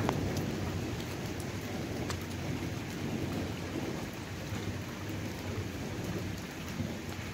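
Steady rain falling, with a low rumble underneath and a few sharp drop ticks.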